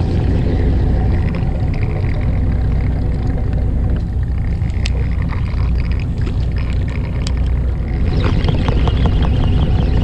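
Fishing boat's engine running with a steady low rumble. Near the end, a fast run of ticks as a baitcasting reel is cranked in.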